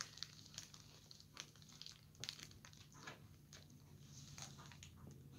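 Faint, scattered crinkles of a thin plastic bag as a cat shifts with its head inside it, over a low steady hum.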